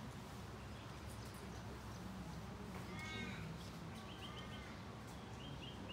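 Birds calling faintly: two arched calls about three and four seconds in, and a few short high chirps, over a steady low background hum.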